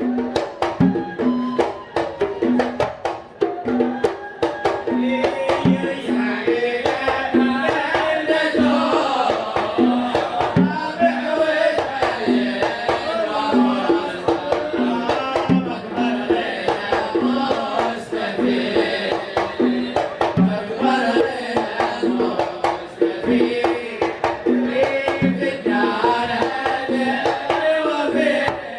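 Devotional group singing of a qasida in the Kuwaiti sawt style, over a steady beat of hand drums about once a second with sharp claps between.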